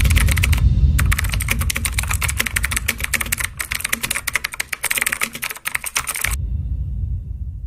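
Rapid computer-keyboard typing sound effect, many clicks a second over a low rumble. The clicks stop about six seconds in, and the rumble fades out.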